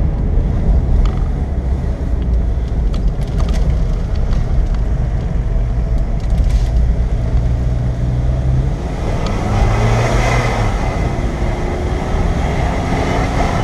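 Car engine and tyre noise heard from inside the cabin as the car pulls uphill through a tight hairpin bend, the engine note shifting as it goes. A wash of noise swells briefly about ten seconds in.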